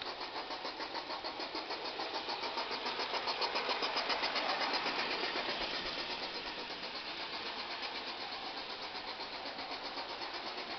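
G-scale model steam locomotive running on track with a quick, even rhythmic pulsing. It grows louder toward the middle and then eases off, as if passing close by and moving away.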